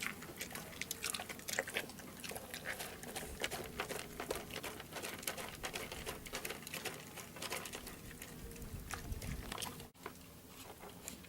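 An animal munching its feed up close: a dense, irregular run of small crunching clicks.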